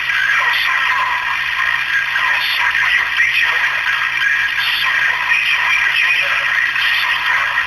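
CB radio receiver audio: steady static hiss with garbled, warbling transmissions coming through the channel.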